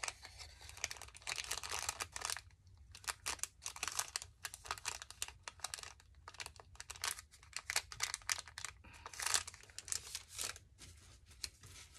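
Paper rustling and crinkling in short, irregular bursts as a sheet is handled and fitted into place.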